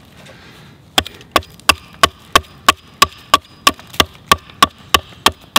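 Small hatchet chopping into the end of an upright log, cutting a seven notch out down to a saw stop cut. About a second in, quick, even strikes begin, roughly three a second.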